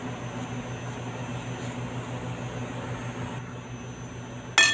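Steady low hum with a hiss, and near the end a single sharp clink with a short ring: a metal fork striking the glass mixing bowl.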